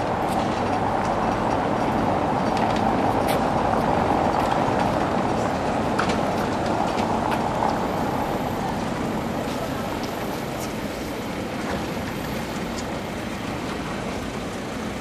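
Vintage two-axle electric tram running along its street track, a steady rumble and hum of wheels and motor that slowly fades as it moves away, with a few faint clicks.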